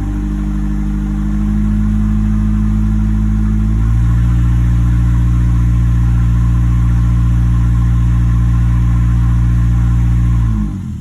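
2011 Nissan Altima engine running in drive under a light load, steady and even with no misfire now that the faulty ignition coil has been replaced. The engine note steps up and gets louder about four seconds in, and the revs fall away near the end.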